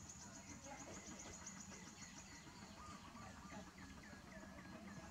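Faint birds and insects: a fast, high ticking trill in the first half, then a quick run of short, falling chirps near the end.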